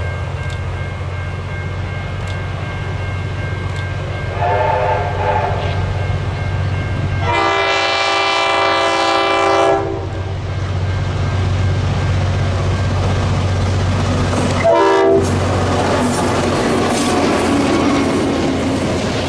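Diesel locomotive engines droning as a train approaches, with three horn blasts: a short one about four seconds in, a long loud one a few seconds later, and a very short one about fifteen seconds in. Near the end the train passes close, its wheels clattering over the rail joints.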